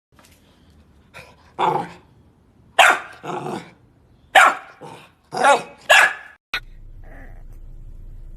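Puppy barking: a string of about eight short barks over some five seconds.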